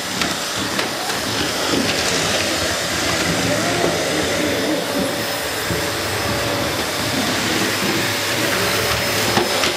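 Household vacuum cleaner running with a steady drone and a faint steady whine.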